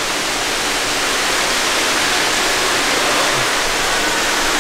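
Indoor fountain running: water jets splashing into the basin, a steady rush of falling water.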